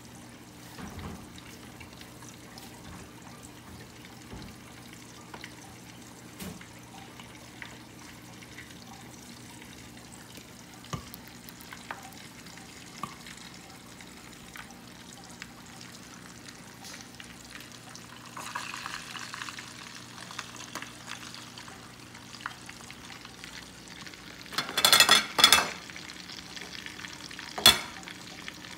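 Pork belly frying in hot oil under a glass lid: a faint, steady crackle and sizzle over a low hum, with a louder stretch of sizzling about two-thirds of the way through. Near the end come a few sharp, loud pops of spattering fat.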